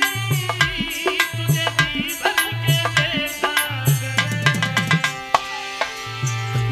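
Indian folk-song accompaniment: hand drums keep a steady beat under a wavering melodic line, which gives way to sustained held notes about four seconds in.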